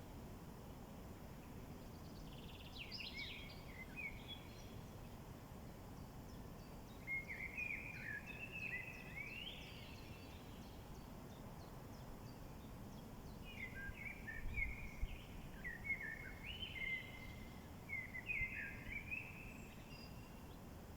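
A songbird singing three bouts of quick, twisting phrases: one short, then one a few seconds long, then a longer run near the end. Under it is a steady, low outdoor background noise.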